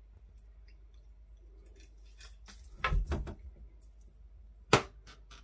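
Cat wand toy with a small bell on the end being batted about, jingling and clattering in a few quick clicks and knocks about halfway through, then one sharp click near the end.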